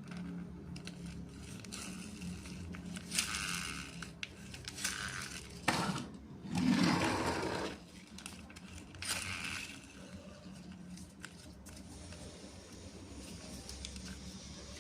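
Hands handling plastic toy vehicles and their packaging: scattered scrapes and rustles with a sharp click, the longest and loudest rustling scrape a little past the middle, over a faint steady hum.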